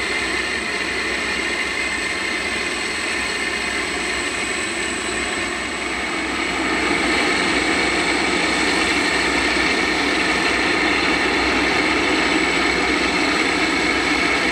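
Turbine whine from a Boeing 747-400 during pushback: a steady rushing noise with high whistling tones, growing louder about halfway through.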